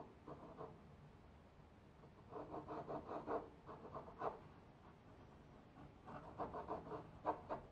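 Graphite pencil drawing on paper: rapid scratchy strokes in bursts, a short one near the start, then two longer runs of several strokes a second with a pause between.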